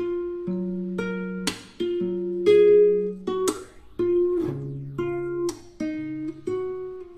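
Background music of plucked and strummed acoustic guitar, with a chord struck about every two seconds over held notes.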